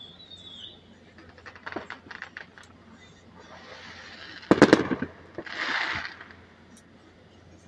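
Fireworks going off some way off: scattered small crackling pops, then a rapid string of loud bangs about halfway through, followed by a brief hiss.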